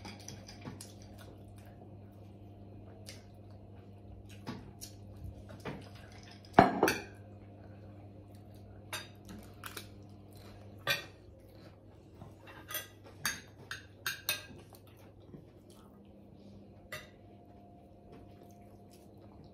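Cutlery clinking and tapping on plates during a meal: scattered short clicks, the loudest about six and a half seconds in, over a faint steady hum.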